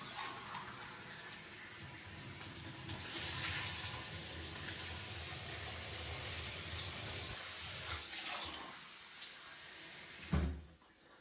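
Kitchen faucet running water into the sink, a steady rush that shuts off about ten seconds in, followed by a short knock.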